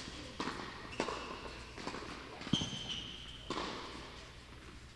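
Tennis ball knocks on racket strings and court: about five sharp strikes, the loudest about halfway through. A thin high squeak follows it for about a second.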